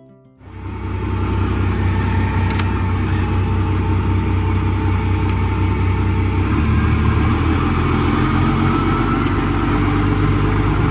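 A large vehicle engine running steadily, its pitch stepping up about six and a half seconds in as it is revved.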